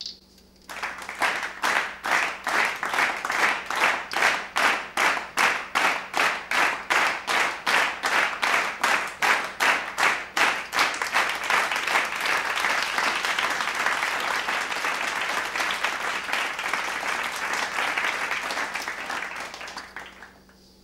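Crowd clapping in unison at about four claps a second, then breaking into steady applause that fades out near the end.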